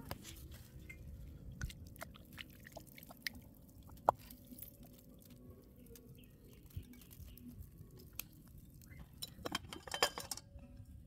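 Quiet wet handling sounds of a freshly caught fish being rinsed with water poured from a bottle, with small scattered clicks and drips, one sharper knock about four seconds in and a quick run of clicks near the end.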